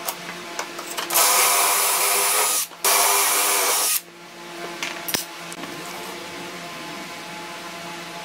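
Cordless drill boring dowel holes into the edge of a plywood panel through a dowel jig: two runs of about a second and a half and a second, with a brief stop between, starting about a second in. Light clicks of tools being handled come before and after.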